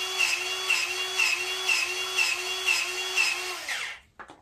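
Powered grease gun running in pulses about twice a second, one per pump stroke, as it forces grease into a grease zerk. It stops near the end, and a few faint clicks follow.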